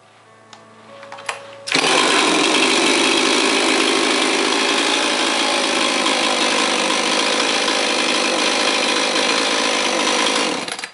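Husqvarna 262XP 62cc two-stroke chainsaw, at first ticking over quietly at idle. About two seconds in it snaps to full throttle and runs wide open with no load, steady, for about nine seconds, then drops back near the end.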